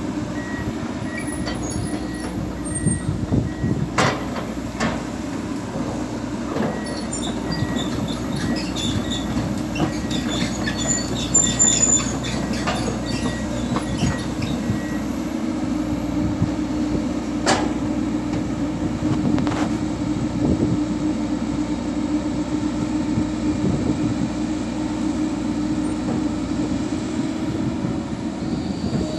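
Komatsu PC200 hydraulic excavator's diesel engine running steadily under digging load as it scoops and dumps soil, with several sharp metallic clanks from the bucket and boom and a burst of short metallic squeaks and ticks near the middle.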